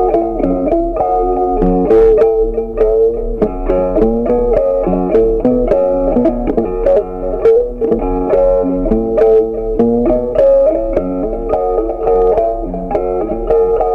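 Background music of plucked guitar, with one note struck after another at a steady pace.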